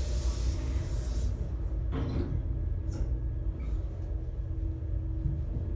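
LiftMotion holeless dry-powered hydraulic elevator car riding down to the lower floor, heard from inside the cab: a steady low rumble with a faint hum. A brief hiss at the start and a short knock about two seconds in.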